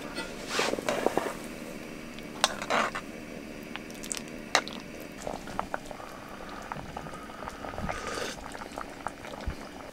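Pot of soup boiling with a steady bubbling, broken by a few short clicks and knocks.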